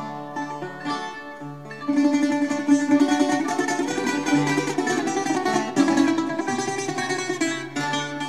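Bouzouki playing the instrumental break of a rebetiko song, a busy plucked melody that gets louder about two seconds in.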